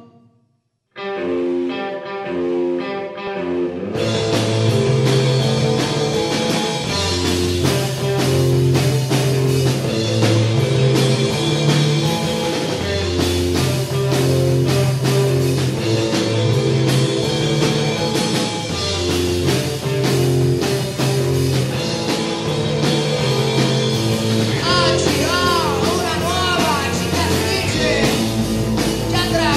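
Rock band playing live: an electric guitar starts alone about a second in, then drums, bass and a second guitar come in together about three seconds later and play on at full volume. A singing voice comes in near the end.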